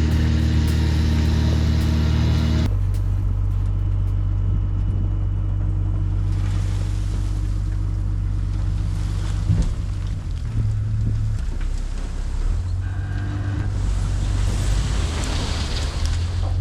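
An engine running steadily, changing abruptly about three seconds in to a lower, steadier hum, with wind noise in the later part.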